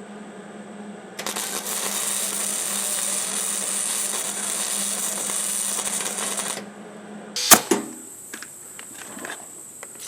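MIG welder arc laying a weld bead on a steel tractor wheel rim to seal an air leak: a steady crackling sizzle starts about a second in, lasts about five seconds and cuts off sharply. About a second later comes one loud sharp knock, then a few light clicks.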